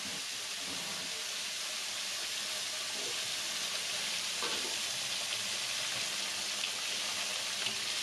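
Pieces of fresh mackerel tuna (tongkol) deep-frying in hot oil in an aluminium wok: a steady sizzling hiss with a few small pops late on.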